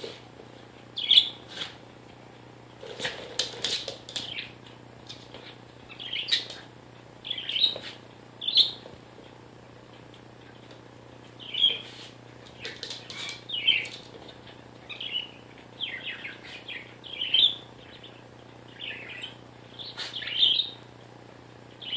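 Pet parakeet chirping in short repeated bursts every second or two, with brief pauses between.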